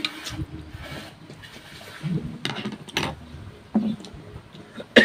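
Close-up eating sounds: chewing and mouth smacks with a few short, sharp clicks at irregular intervals, the loudest near the end.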